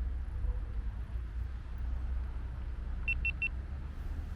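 A GoPro Hero 9 camera gives three short, quick high beeps about three seconds in, its signal on being switched on or starting to record. Under it runs a steady low rumble.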